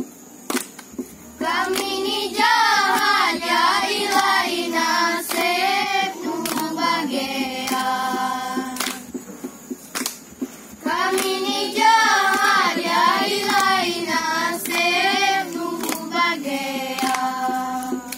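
A group of children singing a folk song together, with hand claps keeping the beat. The singing breaks off for about two seconds in the middle, with the claps carrying on, then starts again.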